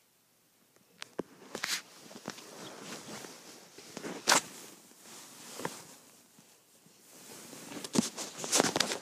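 Irregular rustling and soft knocks as the phone is handled and moved across a fleece blanket, loudest about four seconds in and again near the end.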